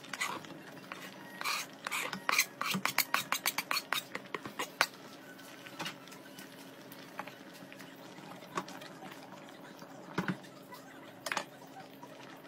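Kitchen handling at an aluminium pot of simmering curry: a quick run of sharp clicks and taps from about one and a half to five seconds in, then a few single knocks later on, over a steady low hum.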